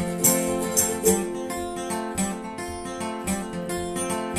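Steel-string acoustic guitar strummed in a steady rhythm during an instrumental break, with no singing.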